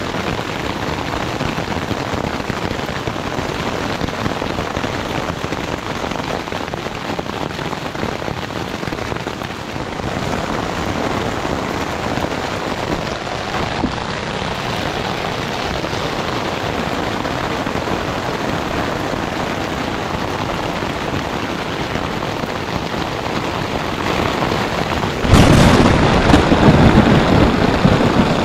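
Steady rain drumming on tent fabric, heard from inside the tent, with a sudden louder burst about 25 seconds in.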